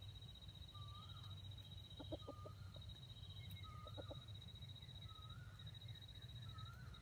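Junglefowl rooster clucking softly in two short runs of three or four clucks, about two seconds apart. Underneath are a faint steady high-pitched drone and a soft chirp that repeats about once a second.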